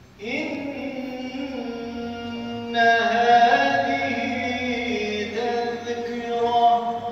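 A solo male voice chanting a mihrabiye, a Turkish Islamic hymn, in long, held, ornamented notes. It begins a moment in and grows louder about three seconds in.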